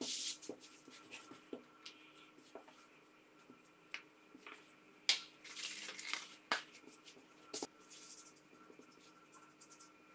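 Hands rubbing flour over a thin sheet of yeast dough and lifting and laying dough sheets on a silicone baking mat: soft scattered rustles, brushing and light taps, busiest about halfway through.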